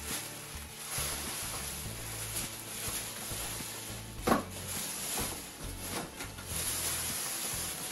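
Cardboard boxes being lifted, shifted and set down, with rustling and one sharp knock about four seconds in.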